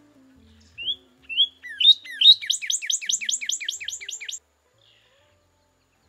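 Northern cardinal singing: two rising whistled notes, then a fast run of about six short down-slurred notes a second that stops abruptly.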